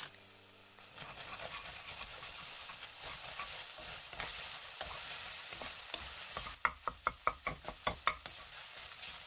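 Crumbled tofu and egg frying in a nonstick pan while a spatula stirs it. A steady sizzling hiss starts about a second in, and near the end the spatula knocks and scrapes against the pan in a quick run of sharp taps.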